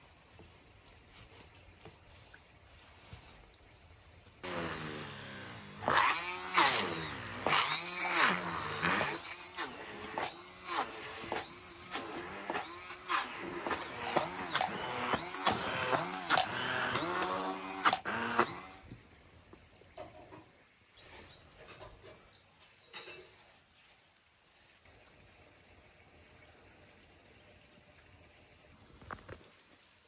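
Electric immersion blender running for about fourteen seconds, starting about four and a half seconds in, its motor pitch repeatedly dipping and rising as it churns a thick liver-and-potato pâté mixture, then stopping; a few faint knocks follow.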